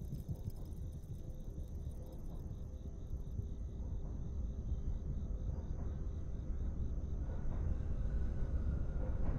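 Crickets chirping steadily at night over a low rumble that grows slowly louder, the sound of a train approaching in the distance.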